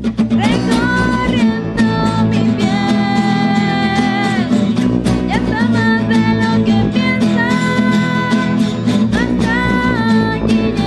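A woman singing long, held notes over two acoustic guitars, one a nylon-string classical guitar, and a Yamaha bass guitar, played live by a small acoustic band.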